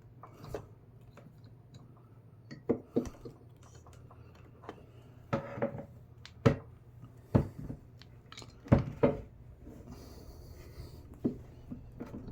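Handheld hydraulic crimper being worked, its handles pumped to build pressure on the die: a string of irregular sharp metal clicks and clunks, several close together around the middle.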